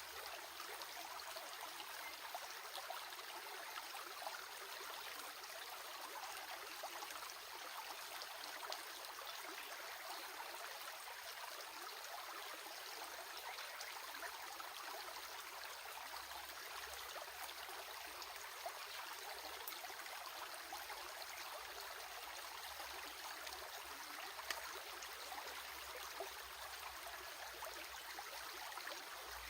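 Stream water running over stones, a steady babbling with small splashes.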